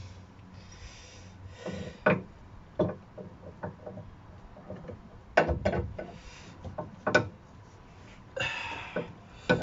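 Scattered knocks and clinks of metal tools and a suspension drop link being tried into its mounting, with the loudest sharp knock about five and a half seconds in and a short breathy rush near the end. The drop link will not go through: its hole is too small from the subframe's paint coating.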